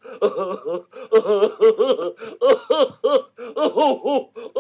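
A person's voice making a vocal sound effect: a rapid string of short, laugh-like pitched syllables, several a second, with brief pauses.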